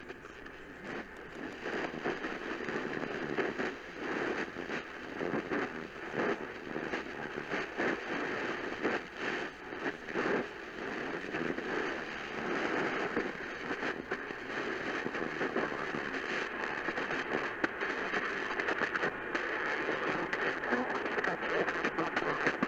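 Radio static: a steady noisy hiss broken by frequent crackles, with no clear programme audio.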